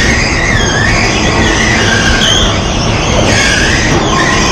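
Bumper cars running in an indoor arena: a steady loud rumble, with high whining tones that waver up and down in pitch over it.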